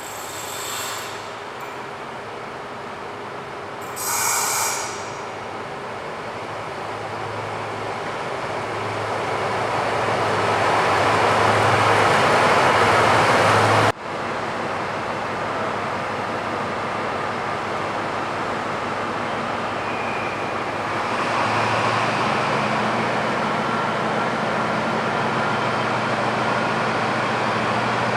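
Train running through a railway station: its rumble builds steadily to a peak, breaks off suddenly about halfway through, then continues as a steady train noise with a low hum that strengthens near the end. A short high burst of sound about four seconds in.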